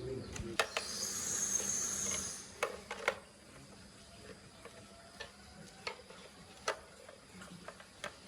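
Scattered small clicks and taps of hand work on small hard parts, with a hiss lasting about a second and a half near the start.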